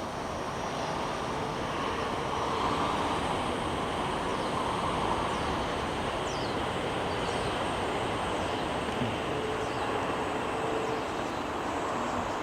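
A cicada singing, the season's first: a faint high steady buzz over a louder steady rushing background, with a few short falling high notes.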